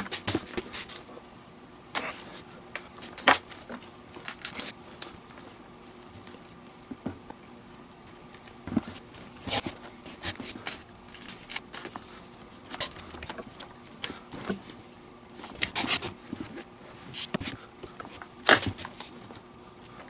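Leather lace being drawn through the lace holes of a baseball glove with a lacing needle: irregular short rasps of lace rubbing through leather, with small clicks of handling, every second or so.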